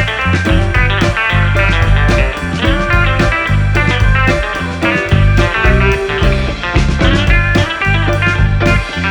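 Background music: a guitar-led track with a steady bass, in a blues-rock style.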